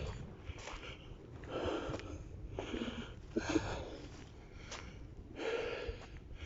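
A person breathing audibly close to the microphone, a breath about every one to two seconds, with one sharp click a little after the middle.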